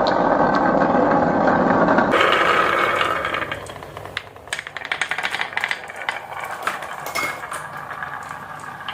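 Marbles rolling in a dense, steady rattle along a marble run track for about three seconds, then fading into scattered sharp clicks and clacks as marbles knock against the track and each other.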